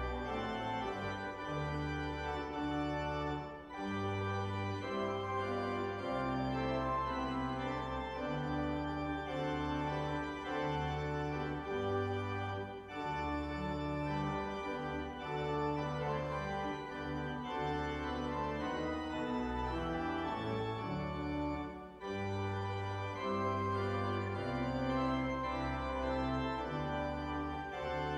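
Church organ playing a hymn in held chords that change about once a second, with brief breaks between phrases.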